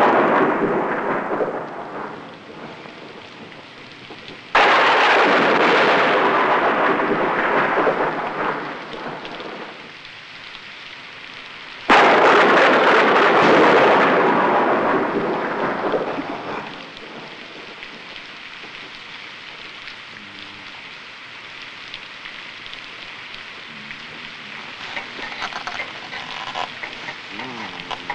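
Thunderstorm: a thunder roll fading at the start, then two sudden thunderclaps, about four and a half and twelve seconds in, each rumbling away over several seconds, with steady rain beneath.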